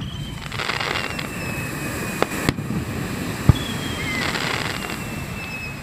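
Fireworks display: four sharp bangs of bursting shells and two long, high whistles, each falling slightly in pitch, from whistle-tailed shells. Brief hissing crackle follows the bursts.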